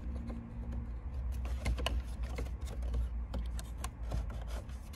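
Small plastic clicks and rattles from the dashboard clock module of a 1987 Toyota Cressida as it is worked loose and pulled out of the dash trim. A steady low rumble runs underneath.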